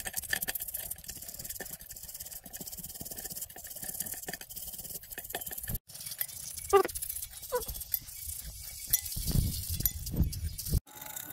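Rusty two-stroke engine parts being cleaned in a pan of solvent: small metal parts clink and rattle, then, about halfway through, a brush scrubs an aluminium cylinder in quick scratchy strokes.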